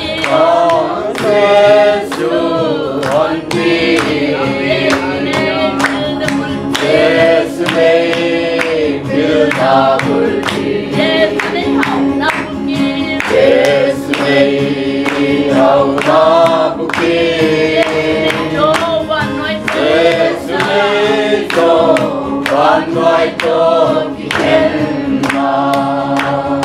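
A small group of men and women singing a gospel hymn together, with hand clapping keeping a steady beat.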